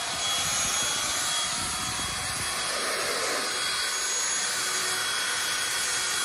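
Cordless battery-powered backpack leaf blower running steadily: a rush of air with a thin high whine.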